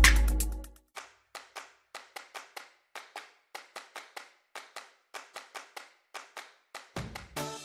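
Electronic intro music fades out. It is followed by a run of short, sharp handclap-like clicks, roughly three a second and unevenly spaced. Music with a melody comes in near the end.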